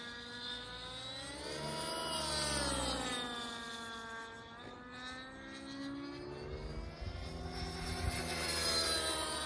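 Radio-controlled model helicopter flying overhead: a whine of several tones together that rises and falls in pitch as it manoeuvres, growing louder about two and a half seconds in and again near the end.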